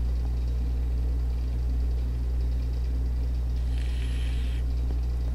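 Steady low electrical hum in the recording, with a brief soft hiss about four seconds in.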